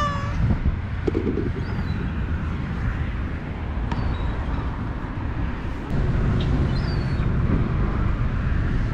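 Steady low outdoor rumble that grows louder about six seconds in, with a cat's short rising meow right at the start and a few faint high chirps.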